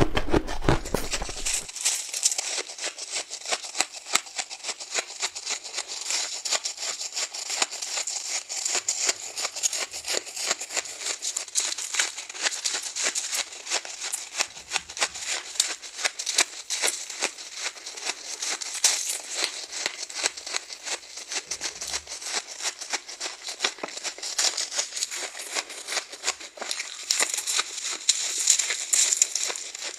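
Soft, frosty frozen ice being bitten and crunched: a dense, continuous crackling made of many small crisp snaps.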